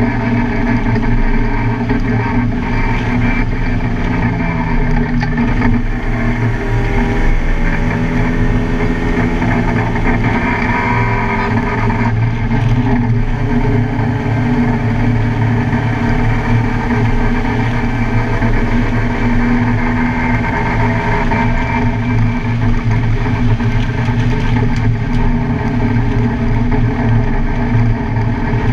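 Car engine running hard at speed on a race track, its pitch rising and falling as it accelerates, shifts and lifts.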